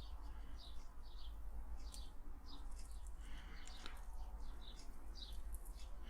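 Small birds chirping faintly in short high chirps over a low steady hum.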